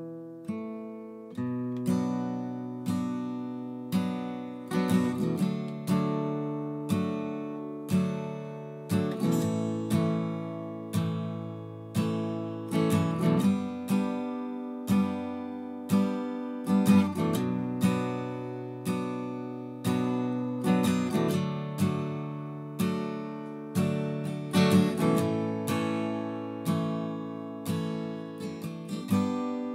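Acoustic guitar with a capo, strummed chords in a slow steady rhythm of about one strum a second with a few quick extra strums, as the song's closing instrumental; the last chord is left to ring out near the end.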